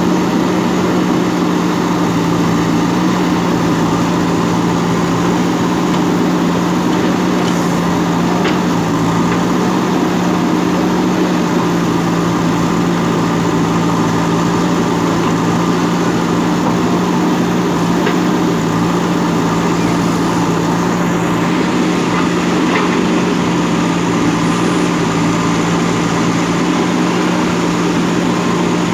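JCB backhoe loader's diesel engine running steadily at an even, unchanging pitch.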